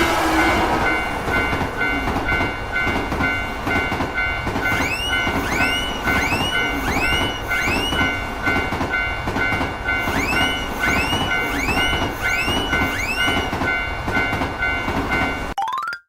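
Japanese railroad-crossing warning bell ringing its alternating two-tone "kan-kan" over the rumble and rhythmic clatter of a passing train. Two runs of rising-and-falling chirps, about two a second, sound over it a few seconds in and again past the middle. Everything cuts off suddenly near the end.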